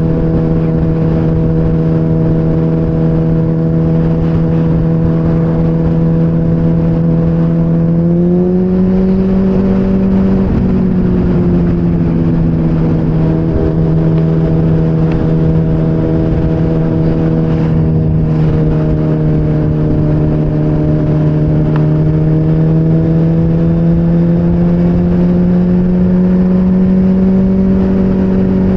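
Motorcycle engine at a steady cruise with wind and road noise. The engine note rises a little about eight seconds in, falls back a couple of seconds later, and climbs slowly again near the end.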